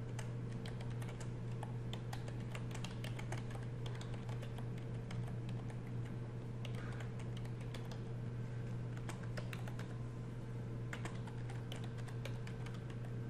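Typing on a computer keyboard: a run of quick key clicks that thins out midway and picks up again near the end, over a steady low hum.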